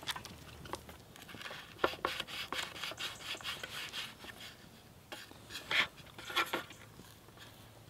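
Scone dough being worked on a wooden chopping board: a fluted plastic scone cutter pressed into the dough and lifted out. There is a run of light taps, knocks and rubbing against the board, busiest in the middle.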